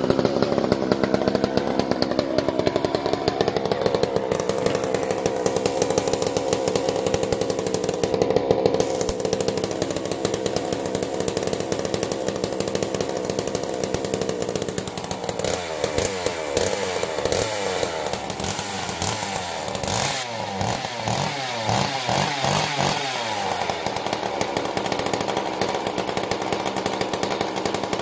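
McCulloch CP125 single-cylinder two-stroke chainsaw engine running with no bar or chain fitted, its carburettor's idle circuit freshly cleaned out so it keeps running on its own. It runs steadily at first, then from about halfway it is revved up and down over and over.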